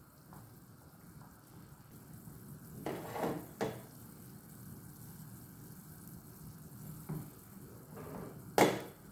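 Onion, garlic and spice mixture in olive oil simmering with a steady low sizzle in a pot on the stove. A utensil clinks and knocks against the pot a few times, the sharpest knock near the end, as the clove sticks are fished out.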